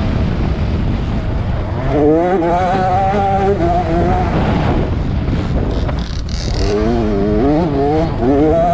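Two-stroke 65cc motocross bike engine, heard from on board, revving up and backing off twice on a dirt track, with heavy wind noise on the microphone. The engine pitch climbs about two seconds in, eases off around the middle, then climbs again near the end.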